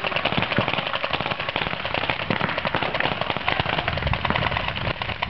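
Paintball markers firing in rapid, overlapping volleys: a fast, continuous crackle of shots.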